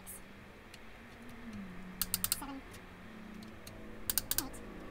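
Click-type torque wrench ratcheting on Ford Pinto cylinder head bolts, with a quick burst of sharp clicks about two seconds in and another about four seconds in. Each bolt is being tightened to the first-stage 55 newton metres in the tightening sequence.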